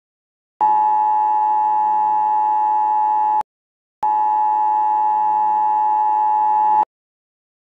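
Emergency broadcast attention signal: two steady tones near 1 kHz sounding together. It comes in two bursts of about three seconds each, with a half-second break between them.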